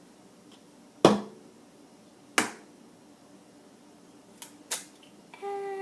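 An egg being cracked: two sharp knocks of the shell against the rim of the bowl about a second apart, then two softer clicks as the shell is broken open.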